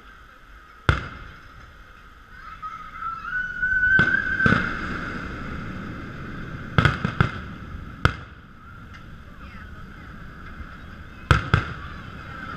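Fireworks display: aerial shells bursting with about eight sharp bangs, several in quick pairs. A wavering high whistle rises in pitch just before a pair of bangs about four seconds in.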